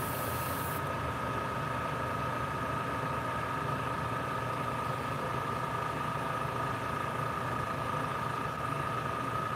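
Small electric motor humming steadily with a thin, constant whine. A high hiss cuts off just under a second in.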